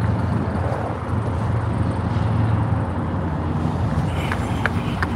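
Steady low engine rumble, with a few light clicks in the last second.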